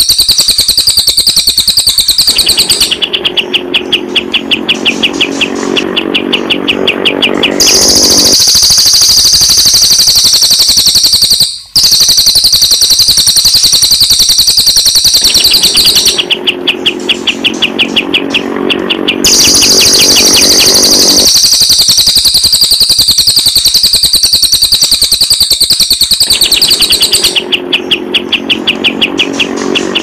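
Recorded songs of a cililin and a kapas tembak bird taking turns in a loop. Long stretches of high, rapid trilling warble give way three times to shorter bouts of fast, evenly repeated chirps, about four or five a second, with lower notes beneath. The sound cuts out briefly near the middle.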